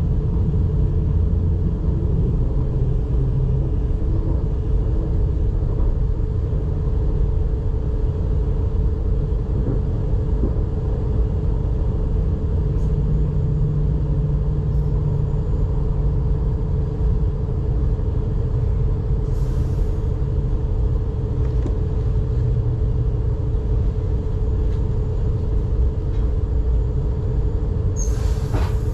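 Cabin sound of an S-Bahn electric train running along the track: a steady low rumble of the wheels and running gear with a constant motor whine held at one pitch. A short hiss sounds about twenty seconds in, and another near the end.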